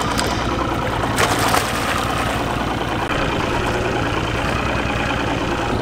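Boat engine idling steadily, with a brief splash about a second in as a diver slips off the side into the water.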